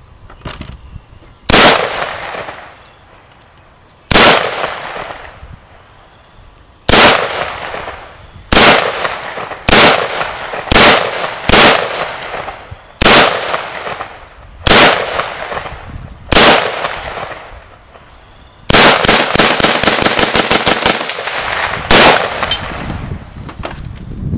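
AR-15 rifle in .223/5.56 NATO fired semi-automatically: about ten single shots one to two and a half seconds apart, then a rapid string of about fifteen shots in some two and a half seconds, and one last shot. Each shot rings out briefly after the crack.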